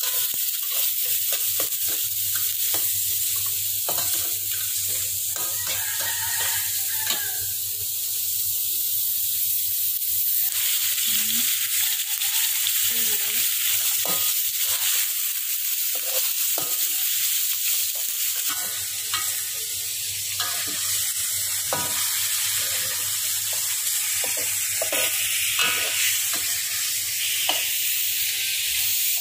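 Minced meat sizzling in hot oil in a metal wok, with a metal spatula scraping and knocking against the wok as it is stirred over and over.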